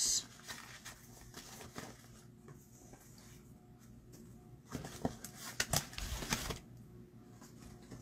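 Paper and craft supplies being handled on a tabletop: faint rustling, then a cluster of light clicks and taps about five to six and a half seconds in.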